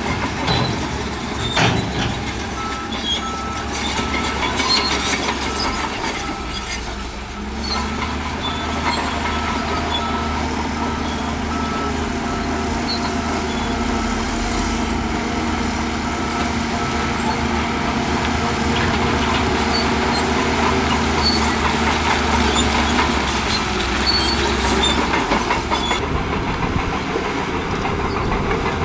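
Heavy diesel earthmoving machinery working: a steady engine drone with scattered clanks and knocks of steel and rock. The engine note rises about eight seconds in and holds.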